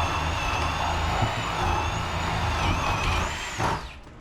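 Power drill running with a steady high motor whine that sags about two and a half seconds in, picks up briefly, then stops just before the end.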